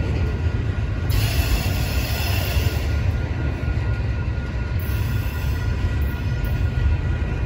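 Union Pacific double-stack intermodal train rolling past, its well cars' wheels running over the rails with a steady low rumble. Thin, steady high squeal from the wheels.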